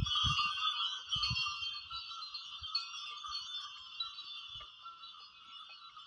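Bells on a pair of plough oxen jingling steadily as the team pulls the plough, fading as the oxen move away, with a few dull low thumps near the start.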